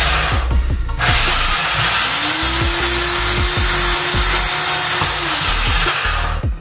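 Corded electric drill in a bench drill stand switched on: its motor whine rises to a steady pitch, runs for about three seconds, then winds down near the end.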